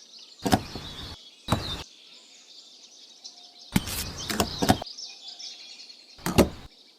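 Faint birds chirping, broken four times by short bursts of knocking and clatter that start and stop abruptly.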